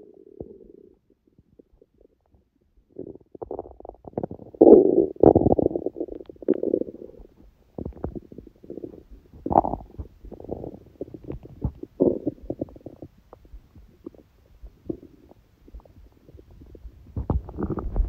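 A hungry person's stomach growling and gurgling in irregular bursts, quiet for a couple of seconds near the start and busiest about five seconds in.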